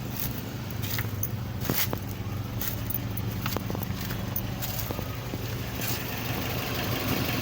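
Kia Sportage engine idling steadily, with scattered sharp clicks and ticks over the hum.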